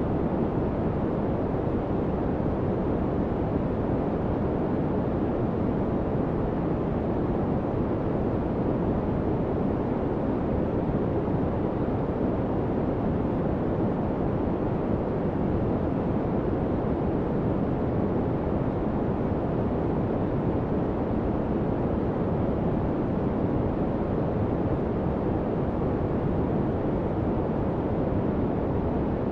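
Steady white noise, even and unchanging throughout, strongest in the low and middle range, so it sounds deep rather than hissy.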